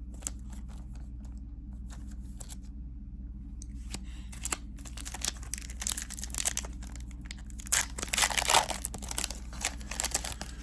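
Trading-card booster pack's foil wrapper being torn open and crinkled, with the cards rustling as they are handled. A few light clicks at first, then the tearing and crinkling get busier from about four seconds in and are loudest near the end.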